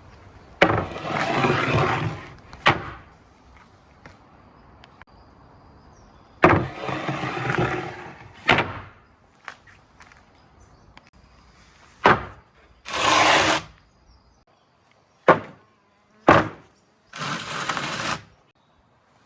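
Marbles running down a marble run: four rolling rushes of about a second or so each, broken up by single sharp clacks as the marbles drop or hit parts of the track.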